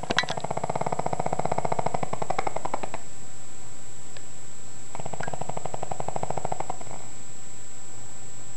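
A pug snoring: two long, fluttering snores. The first runs about three seconds from the start, and the second begins about five seconds in and lasts about two seconds.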